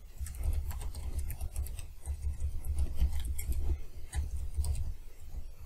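Rapid typing on a computer keyboard: a quick, uneven run of key clicks with dull thuds beneath them, stopping near the end.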